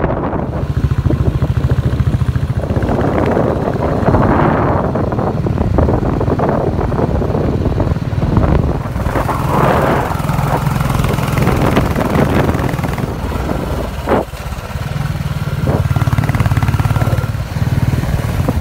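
Motorcycle engine running steadily on the move, with wind noise on the microphone swelling and fading. About three-quarters of the way through there is a brief click and a momentary drop in the sound.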